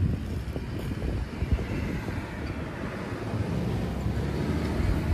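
Steady low rumble and hiss with no distinct events.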